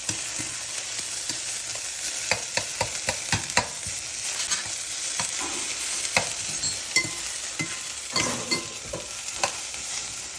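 Chopped onion and green peppers sizzling in olive oil in a pan on high heat, with irregular clicks of a utensil stirring against the pan.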